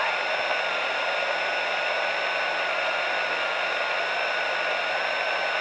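A simple 27 MHz superregenerative receiver (one NPN transistor and an LM386 audio amplifier) hissing steadily from its speaker while tuned to single-sideband activity on CB channel 38, with a thin whistle that wavers slightly in pitch.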